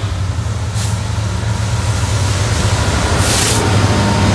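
Class 66 diesel-electric locomotive, its two-stroke V12 diesel running with a deep steady hum that grows louder as it draws up and passes close by. Two short hisses cut through, about a second in and about three seconds in.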